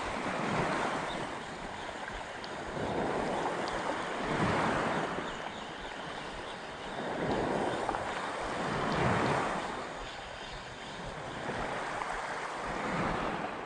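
Small sea waves washing over a shallow pebble shore, surging and easing every few seconds, with some wind on the microphone.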